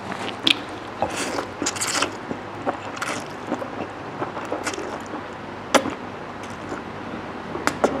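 Close-miked eating: khanom jeen rice noodles slurped in two long slurps about a second in, then wet chewing with sharp smacking clicks.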